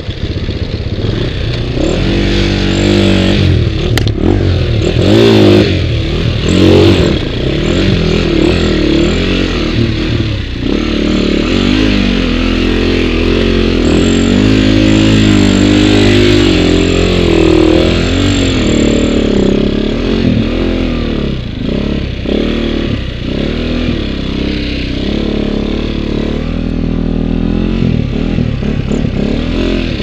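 Husqvarna dirt bike engine revving up and down repeatedly, close up, as it pulls through shallow river water and up a muddy track.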